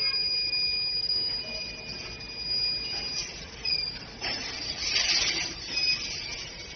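Pneumatic back-seal vertical packaging machine with a three-head weigher running while bagging potato chips. A thin, steady high whine lasts about the first three seconds, then come uneven mechanical clatters and a burst of air hiss about five seconds in.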